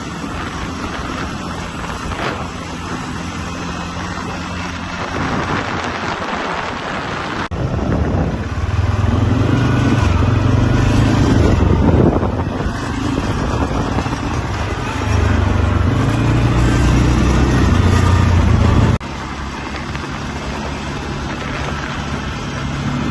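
ATV quad bike engine running as the quad is ridden, its pitch rising and falling with the throttle. It grows louder through two stretches in the middle, then drops suddenly to a quieter, steadier drone about three-quarters of the way through.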